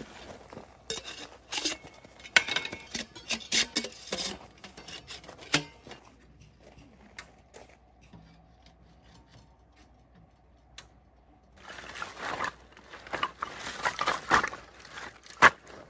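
Objects being handled: scattered clicks, rubbing and light clatters in two spells, with a quieter pause between.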